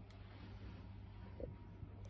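Quiet room tone with a steady low hum and one faint soft knock about one and a half seconds in.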